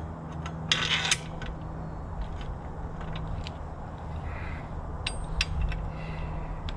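Metal bicycle tools and parts clinking and rattling as they are handled, with a short burst of rattling about a second in and scattered light clicks after it, over a steady low hum.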